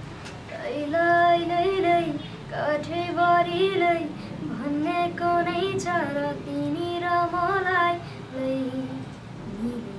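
A young boy singing a Nepali song unaccompanied in a high, clear voice. He sings phrases of a second or two, with held notes that waver and turn, and drops to lower notes near the end.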